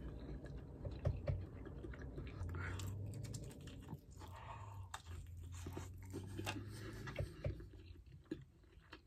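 A person chewing and biting roasted chicken thigh close to the microphone: wet mouth clicks and small crackles. A low steady hum comes in twice, one short stretch and one longer one of about three seconds.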